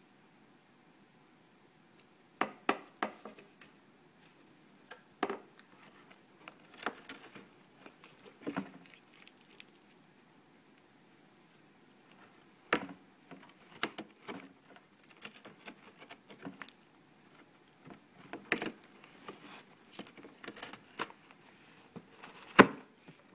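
A cat chewing on the edge of a cardboard box: irregular clusters of crunching and tearing cardboard that start about two seconds in, with the loudest crunch near the end.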